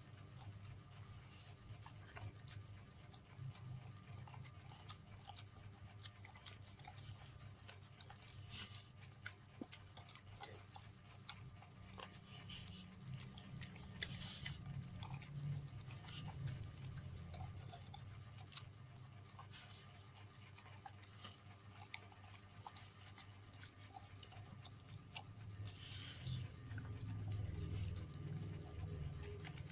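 A dog chewing and eating food, with many small irregular wet clicks and smacks of its jaws.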